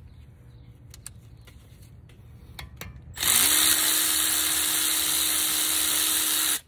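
Cordless electric wrench spinning a caliper bolt out on a front brake caliper. A few light clicks come first as the socket is fitted. Then, about three seconds in, the motor runs at a steady whine for roughly three and a half seconds and stops suddenly.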